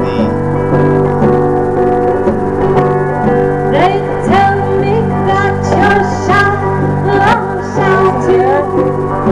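Live band music: a woman sings over electric guitar and hand drums. Her voice comes in about three and a half seconds in, over a steady sustained accompaniment.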